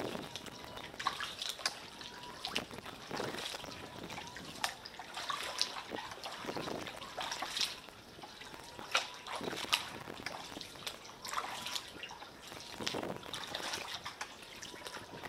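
Water splashing and trickling from kayak paddle strokes, in uneven swells every few seconds, with drips running off the blades in between.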